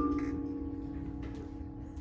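A held vibraphone chord ringing on and slowly dying away, its tones pulsing gently.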